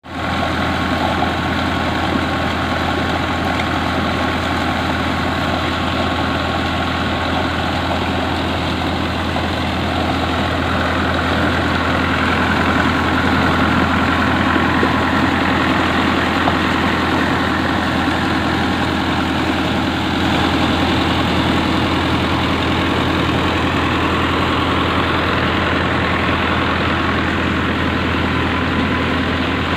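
Tractor engine running steadily, driving a PTO-mounted water pump, with water gushing from the pump's discharge pipe into a concrete irrigation channel.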